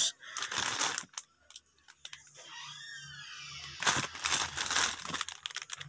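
Plastic sachets of Bear Brand powdered milk crinkling as a hand shuffles through a pile of them, in two bursts with a quieter lull between.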